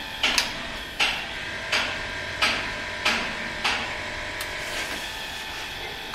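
HYTORC Avanti-10 hydraulic torque wrench cycling on an M48 bolt, clicking sharply with each stroke about every 0.7 seconds over a steady hum, the clicks growing fainter after about four seconds.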